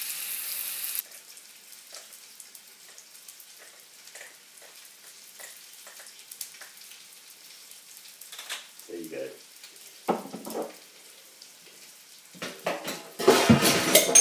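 Pan of shepherd's pie mince and gravy sizzling, with a loud hiss for about the first second, then quiet crackling. Near the end comes a louder, busier stretch of knocks and noise from the pans.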